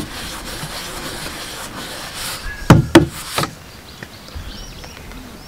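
A palm rubbing a sticker flat onto the side of a hard plastic water carrier, a soft rubbing for a couple of seconds. It is followed by three quick, deep knocks about halfway through.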